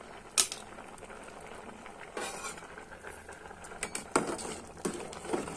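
Rice kheer simmering in a metal pot with a faint steady bubbling, while a metal spoon clinks and scrapes against the pot. There is a sharp clink about half a second in and several more clinks toward the end.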